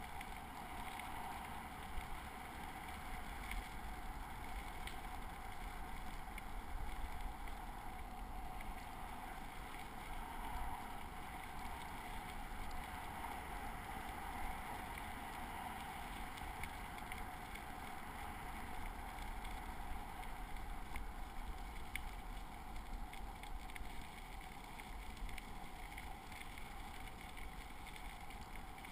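Bicycle rolling steadily along a gravel-and-dirt trail: continuous tyre noise on the loose surface, with wind on the microphone and a few light ticks.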